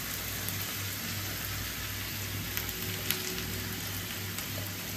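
Chopped onions sizzling in hot oil in a non-stick pan as they are stirred with a silicone spatula, with a few faint crackles over a steady hiss. A low steady hum runs underneath.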